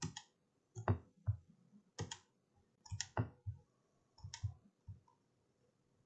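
Computer mouse clicking several times, about once a second, some clicks in quick pairs.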